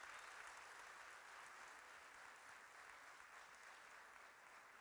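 Faint audience applause, an even spread of clapping that slowly dies down.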